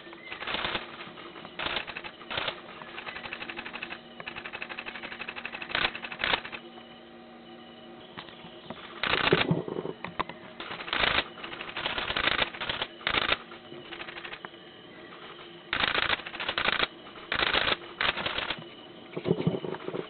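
Camera shutters firing in rapid bursts: volleys of fast mechanical clicks, each a fraction of a second to about a second long, about a dozen of them, the loudest about nine seconds in.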